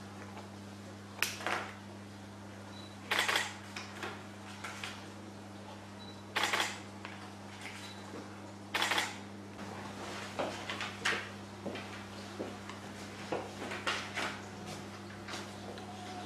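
Papers and pens handled at a desk: a handful of short rustles and clicks over a steady low electrical hum.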